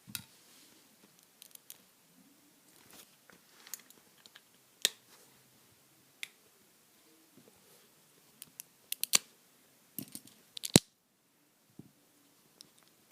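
Hard plastic Lego pieces of a homemade Lego butterfly knife clicking and knocking as it is handled: scattered single clicks, then a quick run of snaps near the end, the loudest just before a short pause.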